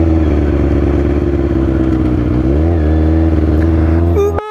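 2003 Kawasaki ZX-6R's inline-four engine running at a steady cruise. Its pitch dips briefly and rises again about two and a half seconds in, and the sound cuts off abruptly near the end.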